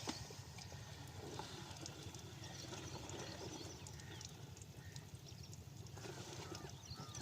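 Single-cylinder diesel pumpset engine (8 hp Rajkot type) running with a steady, rapid low thumping.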